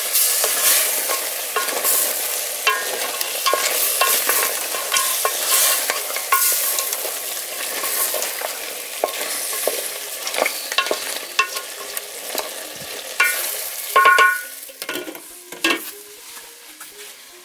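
Goat meat and tomatoes sizzling in a metal pot while a wooden spatula stirs and scrapes against the pot's sides. Near the end come a few louder metallic clanks as a metal lid is put on the pot and the spatula is set across it, after which the sizzling is quieter.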